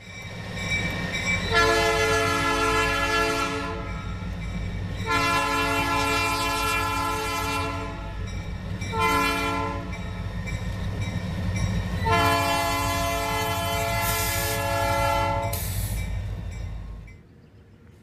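Diesel freight locomotive air horn sounding the grade-crossing signal: two long blasts, a short one, then a final long one, over the steady low rumble of the locomotives' diesel engines. The rumble drops away suddenly near the end.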